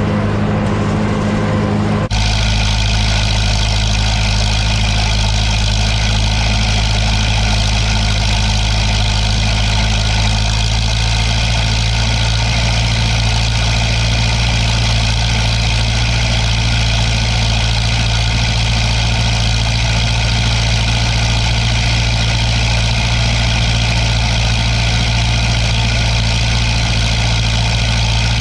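Case 830 tractor engine running steadily while pulling a V rake through hay. The engine tone changes abruptly about two seconds in, then holds steady.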